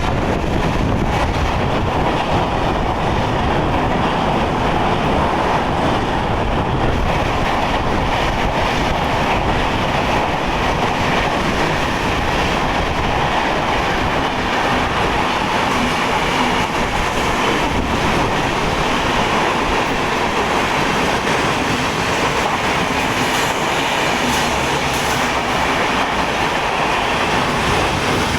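A train passing close by through the station, a steady, loud rattle and rumble of wheels and coaches on the rails.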